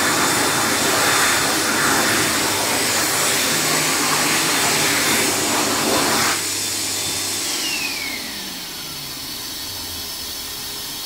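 Biodrier Biolite hand dryer blowing at full speed, a rush of air with a steady high whine. About six seconds in the airflow cuts off sharply, and after a moment the motor's whine glides down as it spins down, leaving a quieter steady hiss.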